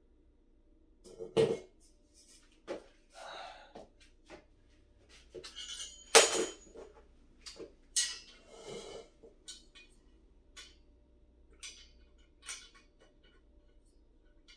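Clinks, knocks and short rattles of metal desk parts and screws being handled and worked loose as a flat-pack computer desk is taken apart. The sharpest knocks come about one and a half, six and eight seconds in, thinning to light ticks near the end.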